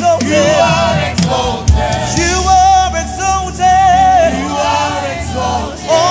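Live gospel praise singing: a choir and singers with vibrato over a band with steady bass notes and drum hits.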